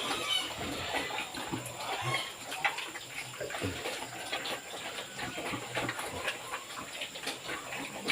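Pigs eating, with irregular wet chewing and smacking, mixed with a few short low grunts.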